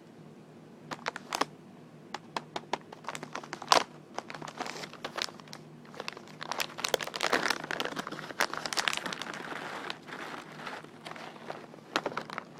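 Crinkly wrapping being tapped and crinkled by hand. It starts with separate sharp taps about a second in, grows to dense continuous crinkling in the middle, then thins out to a few taps near the end.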